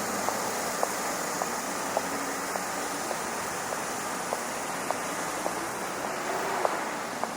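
Steady rushing of harbour water and wind, with faint, evenly spaced ticks a little under twice a second.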